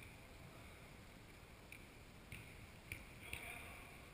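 Near silence: faint room tone of an indoor sports hall, with four faint short knocks in the second half.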